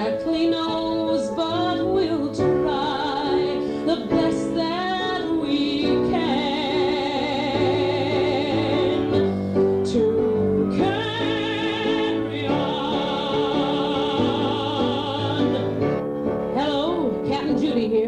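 A woman singing in a trained, opera-like voice with wide vibrato and long held notes, over piano accompaniment.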